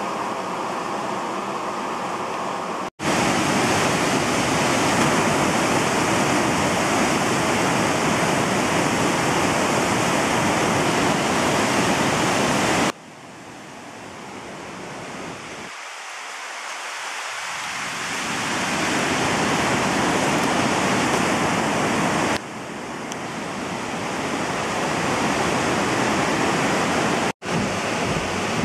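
Rushing whitewater of a creek in flood, a steady loud noise of water pouring through rapids. It is cut off briefly several times, and about halfway through it drops in level and slowly builds back up.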